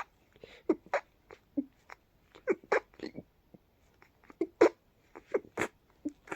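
A congested person's sneezy hiccups coming in a fast, irregular run, about fifteen short sharp hiccups, often two close together.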